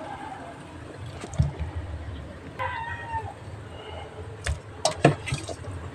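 A cat meowing once, about two and a half seconds in. Around it come a few sharp knocks as whole tilapia are handled in a stainless steel bowl.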